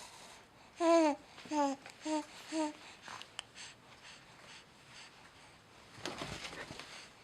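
A young baby cooing: four short vocal sounds in quick succession, each sliding down in pitch, the first the loudest. A brief breathy, rustling noise follows near the end.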